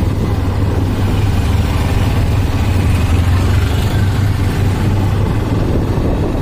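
Hero Xtreme 125R's single-cylinder engine running steadily through a loud exhaust while riding at low speed, with a constant rush of wind noise over it.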